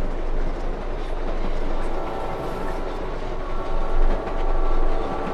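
Passenger train running at speed: a steady rumble and rattle of wheels on rails, with a steady high ringing tone coming in about two seconds in.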